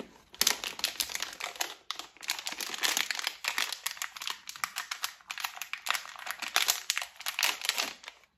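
Plastic wrapping being peeled and torn open by hand: a continuous run of crinkling and crackling with a few brief pauses.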